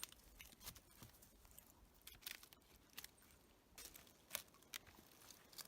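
Near silence broken by faint, scattered crackles and rustles of dry branches and deadwood being handled.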